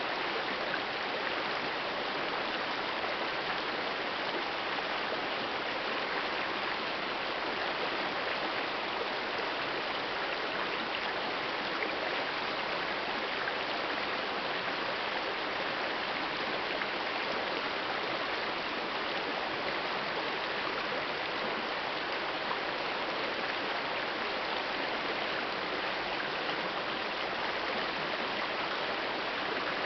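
Shallow, rocky mountain river running over boulders and cobbles in small riffles: a steady, even rush of water with no changes.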